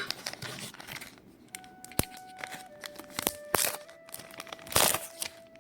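Plastic film and packaging crinkling and rustling as it is handled, with a sharp click about two seconds in and a louder rustle near the end.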